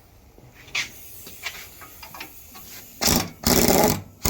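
A few light tool clicks, then about three seconds in a power tool starts up in two short bursts and then runs steadily while loosening bolts on the F-150 engine.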